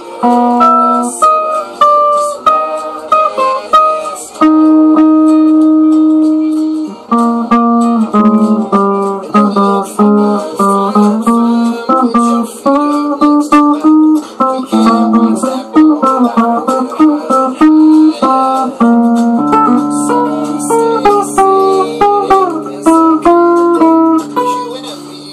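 Electric guitar picking single-note melodic lines and chord fills, with some notes left ringing, including a long held note early on and low notes sustained near the end.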